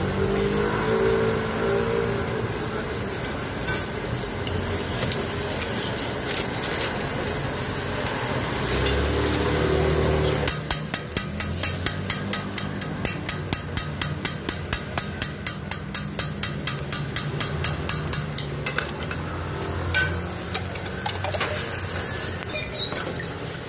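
A metal spatula taps quickly and evenly on a flat-top pancake griddle, about three strikes a second, for some eight seconds, over a light frying sizzle; scattered single clinks follow. Background music with held tones plays in the first part.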